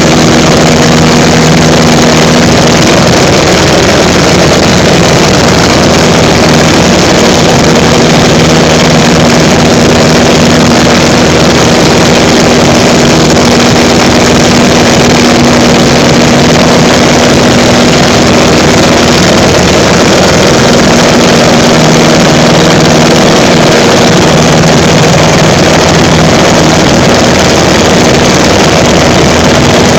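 Pietenpol Air Camper's piston engine and propeller running steadily and loud, heard from the open front cockpit with wind rushing past. The engine note holds constant throughout.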